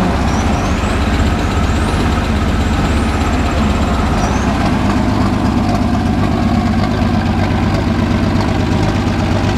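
Turbocharged race car engine idling steadily with a fast, even pulse.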